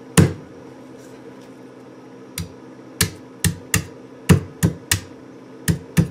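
Kitchen knife blade hacking into the thick husk of a young coconut: about ten sharp chopping knocks at uneven intervals, coming faster in the second half. Each blow cuts into and weakens the husk to get at the hard shell underneath.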